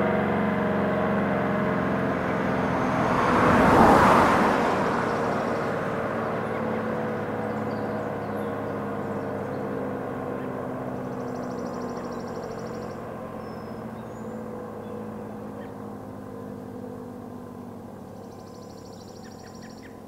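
Outdoor warning sirens winding down at the end of an alert test: several steady tones slowly falling in pitch and fading. A car passes about four seconds in, the loudest moment.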